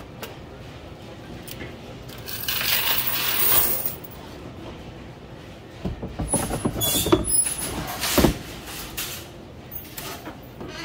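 Coins rattling and sliding in a claw machine's cash box for about a second and a half, then a run of knocks and clatter as the box and drawer are handled.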